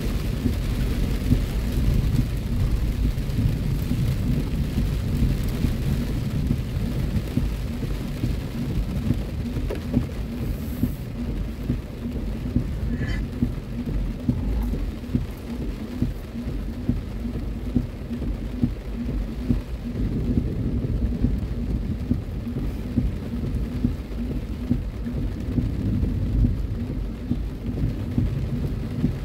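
Heavy rain falling on a car's roof and windshield, heard inside the cabin as a dense, steady, low patter.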